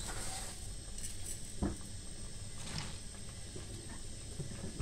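Quiet rustling of chopped collard greens being handled and packed into a glass jar by hand, with a few soft knocks.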